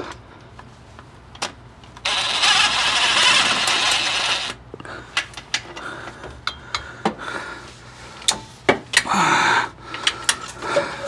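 A power ratchet runs steadily for about two and a half seconds, spinning out a bolt that has already been broken loose by hand, then stops suddenly. Scattered sharp clicks and metal knocks follow, with one more short burst near the end.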